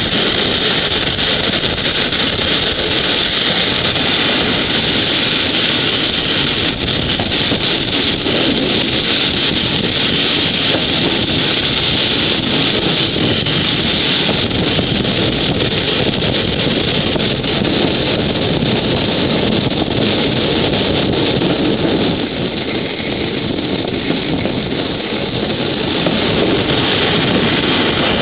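Steady running noise of a moving vehicle, with wind buffeting the microphone. It dips slightly about three-quarters of the way through.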